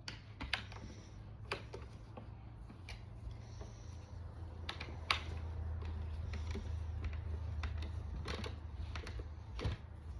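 Scattered clicks and light taps of metal furniture parts and a T-handle hex key being fitted and tightened together, over a steady low hum.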